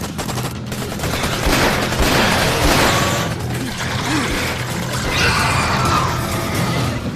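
Action-film soundtrack of sustained rapid gunfire over a dramatic music score.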